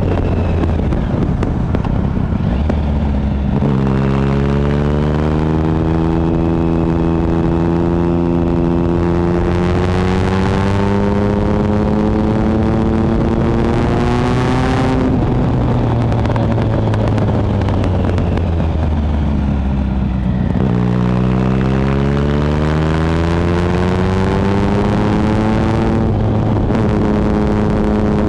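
2013 Triumph Speed Triple 1050's inline-three engine through a Competition Werks slip-on exhaust, rising through the revs for about ten seconds, falling off as the throttle closes, then rising again. Wind rushes over the microphone throughout.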